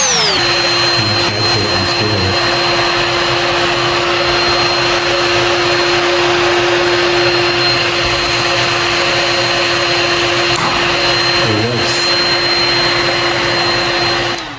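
Handheld heat gun blowing: a steady rush of air under a constant motor whine, used to heat the glued screw bolts holding a scooter battery. It cuts off suddenly at the end.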